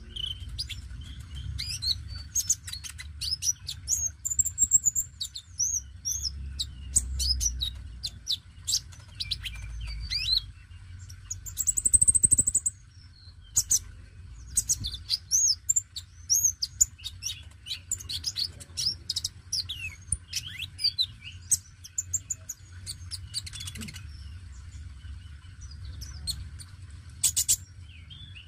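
Male Van Hasselt's sunbird (kolibri konin) singing vigorously in full song: a rapid, almost unbroken string of high, thin chirps, twitters and short trills, with the loudest trill about twelve seconds in.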